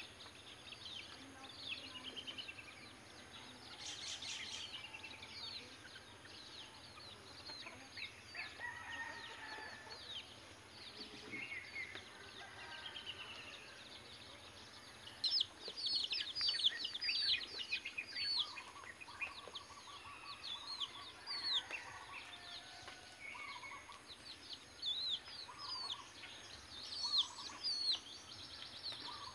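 Native chickens calling: a chick peeps in quick high falling notes, thickest in the second half, over lower, repeated hen clucks.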